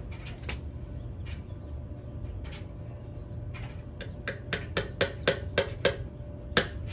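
Claw hammer driving a nail into pallet wood: a few separate taps, then from about four seconds in a steady run of strikes, about three a second.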